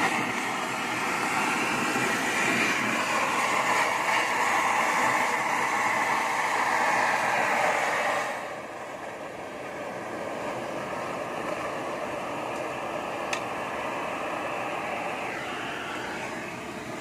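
Steady hissing rush of a gas torch flame used to melt gold, dropping to a lower level about eight seconds in.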